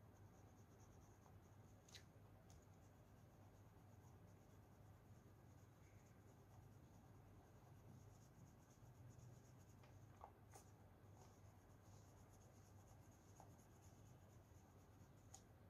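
Very faint scratching of colouring strokes on paper as a tree is shaded in, with a few light clicks, over a low steady hum.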